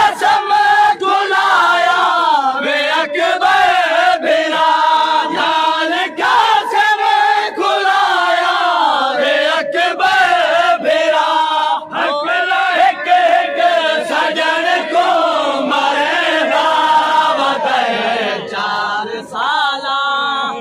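A crowd of men chanting a noha, a Muharram lament, loudly together, many voices overlapping in a continuous sung chant.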